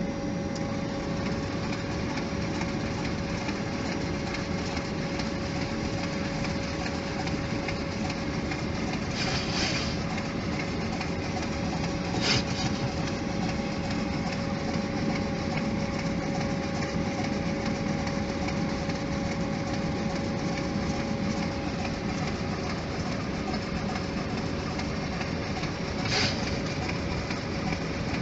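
Steady flight-deck noise of a Boeing 737 in flight, air rushing and engine hum with a steady tone running through it. Three short clicks stand out, two close together about a third of the way through and one near the end.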